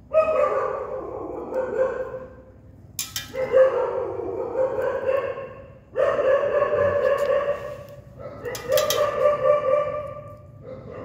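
A dog crying out in four long, drawn-out howls in a row, each lasting two to three seconds at a steady pitch. A couple of sharp clicks come at about three and nine seconds in.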